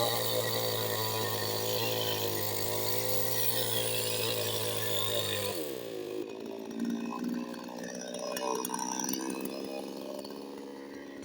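Chainsaw engine running at a steady high speed, then winding down in pitch about halfway through as the throttle is let off, leaving a quieter, uneven sound.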